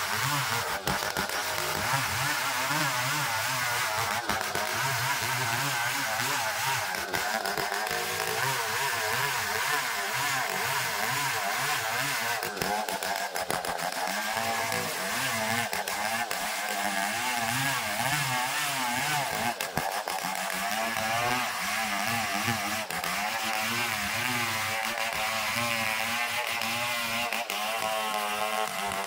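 Homemade engine-driven power saw running under load, cutting ulin (Borneo ironwood) into beams. The engine runs continuously, its pitch wavering up and down as the cut loads it.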